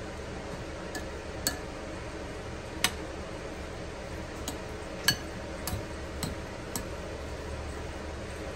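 Metal fork clinking against a serving bowl while stirring potato salad with mayonnaise: about eight scattered sharp clinks, the loudest near three and five seconds in, over a steady low hum.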